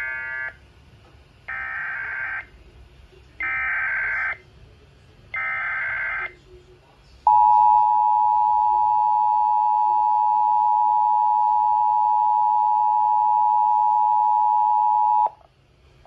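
Emergency Alert System tones for a Child Abduction Emergency: a run of one-second warbling digital SAME header bursts, about a second apart, followed by the steady two-tone EAS attention signal held for about eight seconds and cut off sharply.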